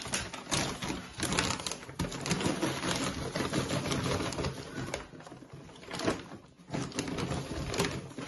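Plastic bag of loose terrarium substrate crinkling and rustling as it is opened and tipped, with the substrate spilling out into a wooden enclosure. Dense, irregular crackling, easing off briefly past the middle.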